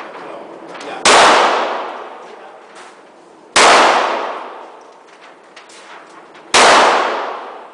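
Three gunshots, a few seconds apart, each followed by about a second of echo dying away.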